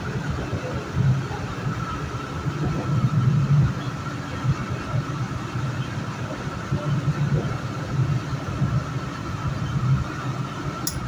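Metro-North commuter train running along the track into a tunnel, heard from on board. There is a fluctuating low rumble of the wheels on the rails with a steady whine over it, and one brief sharp click near the end.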